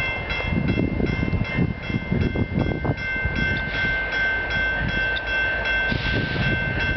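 Level-crossing warning bell ringing continuously, steady high ringing tones, over an uneven low rumble as a freight train approaches in the distance.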